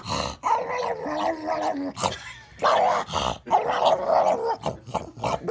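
A puppy vocalizing in a series of wavering, drawn-out calls with short breaks between them.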